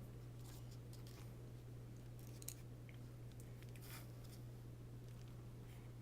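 Faint, scattered clicks and rustles of laptop parts being handled during a keyboard repair, over a steady low electrical hum, with one sharper click about two and a half seconds in.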